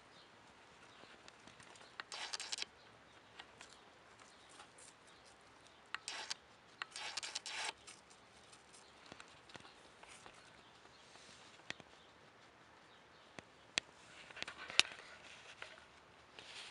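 Guinea pig feeding at a food bowl in wood-shaving bedding: a few short, faint crunching and rustling sounds, with scattered light clicks, the sharpest near the end.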